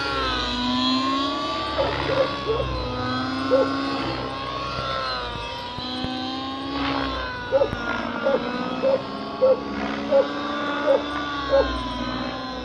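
Glow-fuel (nitro) engine of a nitro-converted 7HV RC helicopter running under load, its pitch swinging down and up again and again as the throttle and rotor load change. A series of short, sharp blips sits under the engine in the second half.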